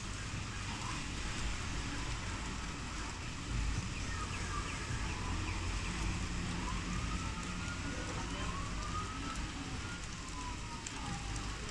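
Steady rain falling on roofs, trees and pavement, a continuous hiss with a low rumble beneath it. Thin calls that rise and fall in pitch sound faintly over it from about three to ten seconds in.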